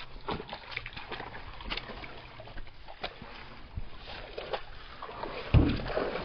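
Water sloshing and splashing with scattered small knocks as someone moves through a shallow creek, then a heavy thump about five and a half seconds in.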